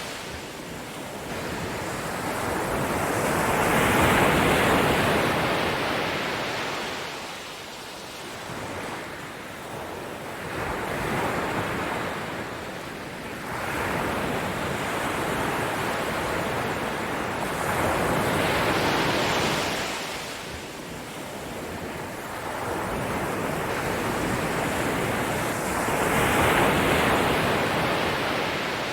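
Ocean waves washing in, a steady rush of surf that swells and recedes in slow surges about every seven seconds.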